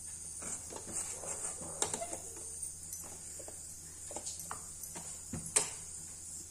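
Wooden spatula stirring and scraping a thick rice-flour and jaggery dough in a steel pan, with scattered light knocks and clicks, the sharpest about five and a half seconds in.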